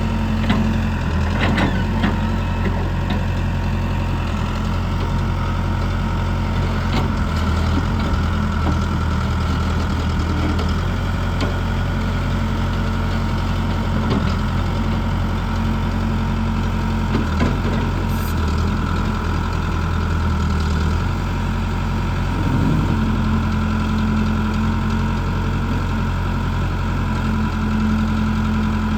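Case 580M backhoe loader's four-cylinder diesel engine idling steadily.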